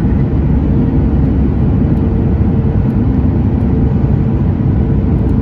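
Steady cabin roar inside a Boeing 737 MAX, from its CFM LEAP-1B jet engines and the airflow, heavy in the low end with a steady hum running through it.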